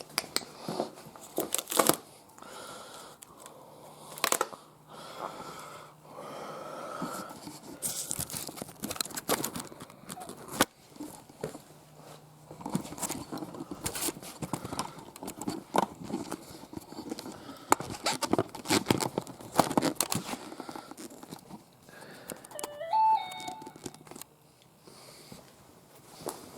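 Packaging being torn and crumpled off new tires: irregular tearing, crinkling and crackling, with a brief squeak a few seconds before the end.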